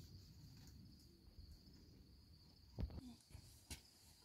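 Near silence with the faint, steady high chirring of crickets, and two soft knocks about a second apart near the end.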